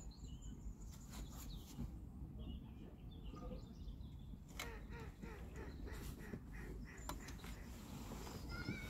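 Faint riverbank ambience: a steady low rumble with a few light clicks and knocks, and short distant bird calls about halfway through and again near the end.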